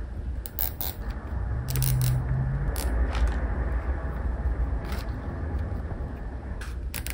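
Plastic zip ties being handled and threaded together: scattered sharp plastic clicks and brief ratcheting rattles. Under them runs a low rumble that swells from about a second in and fades again near six seconds.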